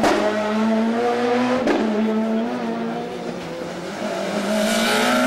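Rally car engines held at steady high revs, with an abrupt break about a second and a half in; the sound dips, then the next car's engine comes closer and grows louder near the end.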